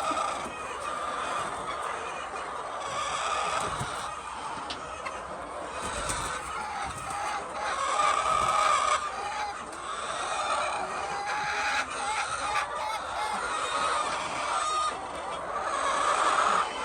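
A flock of chickens clucking and calling, many birds overlapping without a break, with louder swells about halfway through and again near the end.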